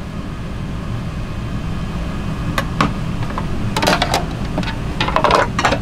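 Metal serving tongs and plastic container lids clinking and clattering a few times while side dishes are served, over a steady low hum.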